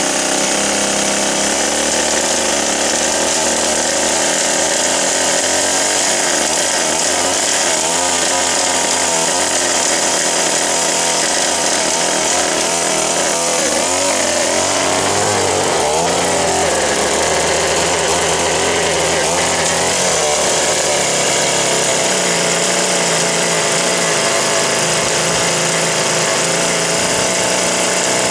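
Small O&R 1 hp two-stroke engine of a 1958 Little Wonder hedge trimmer running steadily at high speed, its pitch wavering up and down for a few seconds about halfway through.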